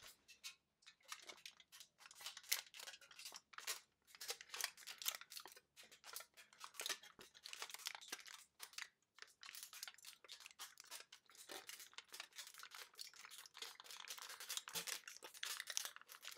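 Aluminium foil being scrunched slowly in the hands: a quiet, irregular run of crinkles and crackles, used to imitate rain falling on a tin roof.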